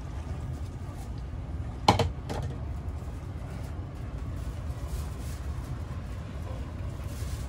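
A bottle set down hard on a table: one sharp knock about two seconds in and a smaller one just after, over a steady low rumble.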